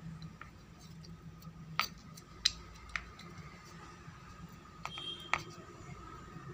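A steel spoon clicking against a plastic bowl, about five short sharp taps, as the back of the spoon presses chopped almonds and pistachios into the set moong dal barfi. A faint steady hum underneath.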